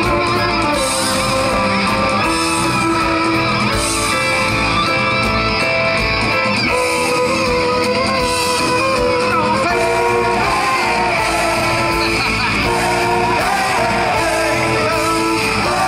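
Live band playing at full volume: electric guitar, bass guitar, violin and saxophone together in a dense, steady wall of music.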